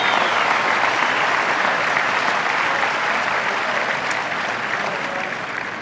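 Audience applauding, the applause slowly dying away.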